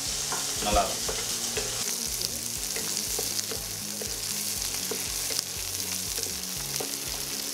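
Small onions (shallots) and curry leaves sizzling in hot oil in a nonstick kadai, with a steady hiss, as a wooden spatula stirs them, scraping and tapping lightly against the pan.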